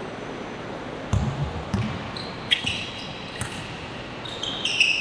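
Basketball bouncing on a court, a few irregular thumps, with short high squeaks of sneakers on the floor in the second half, over steady gym background noise.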